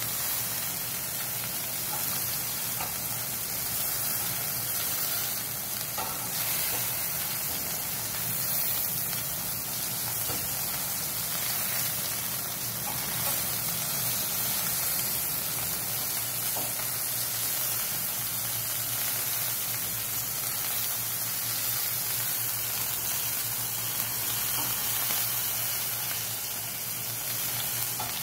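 Chicken pieces sizzling steadily on the wire rack of an electric grill, fat and juices hissing over the hot heating elements.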